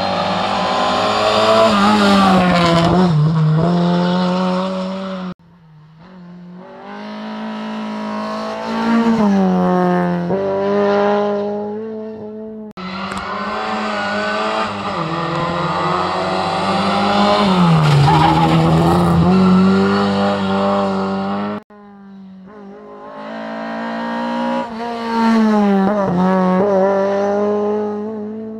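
Rally cars racing hard: engines revving high, their pitch rising and falling with gear changes and lifts, with tyre squeal. The sound breaks off abruptly three times as one car's run gives way to the next.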